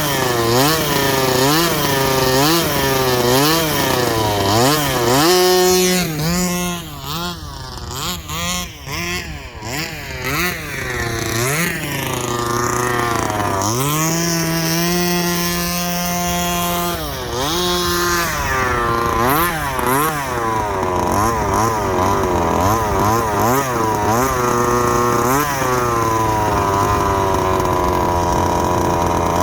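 Rovan Baja 32cc RC car's two-stroke gasoline engine revving up and down over and over as it is driven, with a steadier stretch of a few seconds midway.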